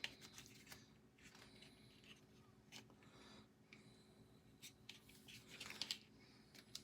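Near silence with a faint low hum, broken by scattered light clicks and short rustles of a small plastic device and its wires being handled, the most distinct about six seconds in.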